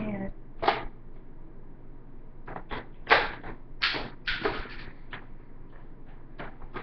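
Plastic clicks and clacks from a Buzz Bee toy foam blaster being handled, about eight irregular sharp knocks, the loudest about three seconds in.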